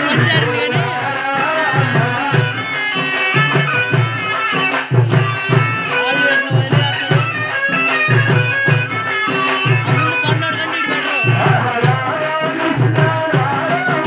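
Kolatam folk music: a drum beating a driving rhythm under a melody, with sharp clacks of the dancers' wooden sticks struck together in time.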